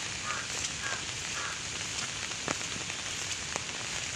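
Steady rain falling, an even hiss, with a few faint short chirps in the first second and a half.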